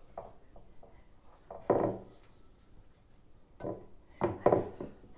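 Kitchen handling sounds: a few short rubbing and knocking sounds on a wooden surface, the loudest about two seconds in and a quick cluster near the end.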